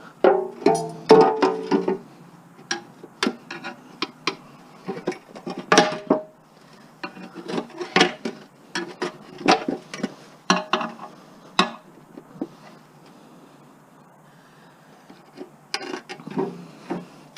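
Hand tools and metal mower parts clinking and knocking irregularly while a gas lawn mower is taken apart for scrap. Some of the knocks ring briefly. The sounds come in clusters with quiet gaps, the busiest near the start and again near the end.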